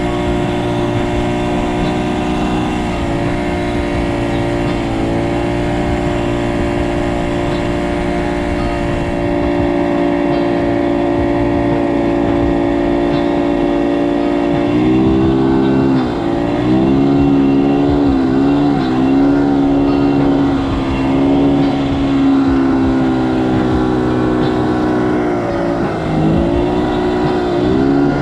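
A motor engine running steadily at one speed, its pitch dipping briefly and recovering several times in the second half.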